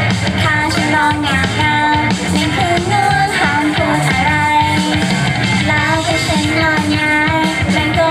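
Pop song played loud, a sung lead vocal holding long wavering notes over a steady beat and bass.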